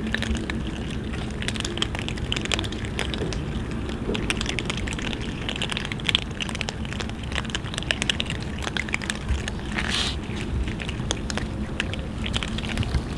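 A group of cats eating together, a dense, continuous crackle of small clicks from chewing and crunching food, over a steady low hum.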